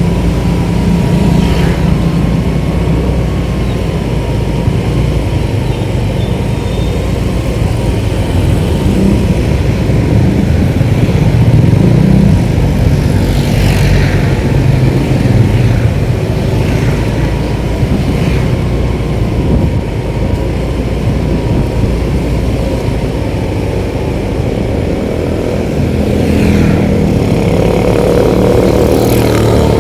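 Motorcycle running steadily while under way on a town road, a loud continuous low rumble with brief swells of other traffic now and then.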